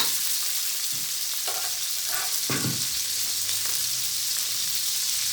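Chicken breast pieces sizzling in hot oil and red curry paste, with a few short scrapes and knocks as the pan is stirred.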